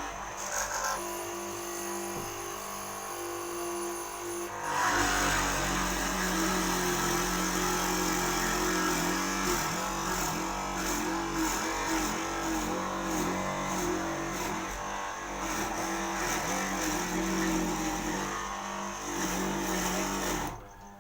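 Electric motor of a woodworking mortising machine running steadily, joined about five seconds in by a louder, rougher cutting noise as it bites into the door timber. The cutting stops and the sound drops away near the end.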